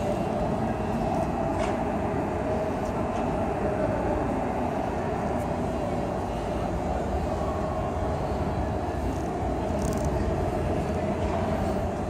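Steady background din of a large exhibition hall, a constant rumble with no distinct events standing out.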